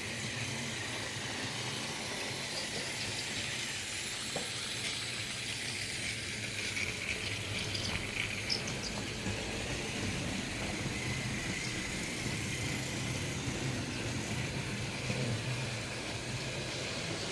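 Battery-powered Plarail and Tomy toy trains running around a plastic track layout: a steady whirring of their small electric motors and gears, with a few faint ticks.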